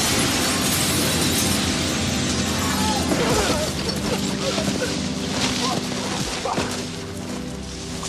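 Film sound effects of a large pane of window glass shattering and the broken glass and debris crashing down, with dramatic score music underneath. The crash starts loud and slowly fades away.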